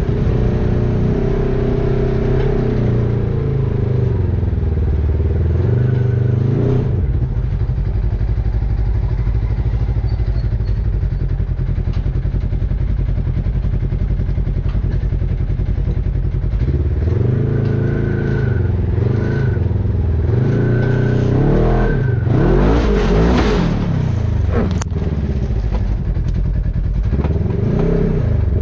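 Side-by-side UTV engine driving under load, revving up and easing off several times, strongest a little past the middle, with one sharp click near the end.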